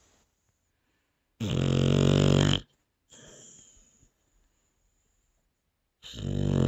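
Pet snoring in its sleep: two loud snores about four and a half seconds apart, each about a second long. The first is followed by a softer breath out.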